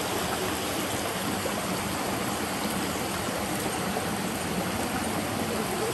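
Steady rush of a rocky river flowing close by.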